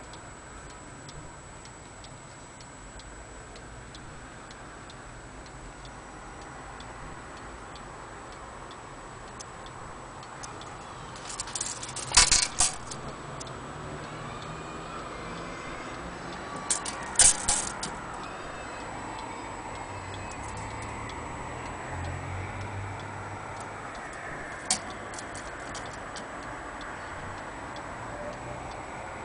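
Franz Hermle wall clock's platform-escapement movement ticking steadily. Two brief bursts of louder clicking break in, about 12 and 17 seconds in.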